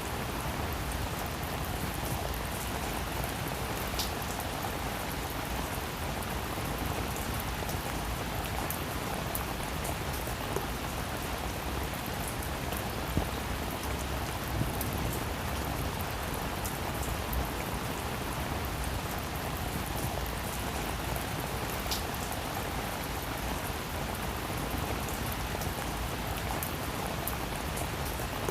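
Steady rain falling on a roof, a continuous hiss with many fine drop ticks and the odd sharper drop standing out.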